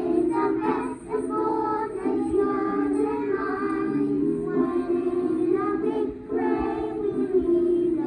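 Children singing a school song along with a backing track.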